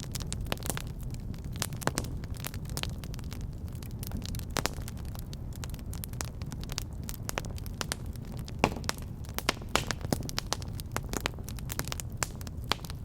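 Fire burning in a fireplace, crackling with irregular sharp pops over a steady low rumble of flames; one pop stands out louder about two-thirds of the way through.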